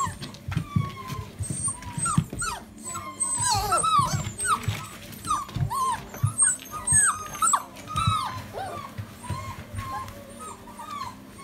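A litter of golden retriever puppies whining and yipping: many short, high, overlapping cries that bend in pitch, one after another, without a break.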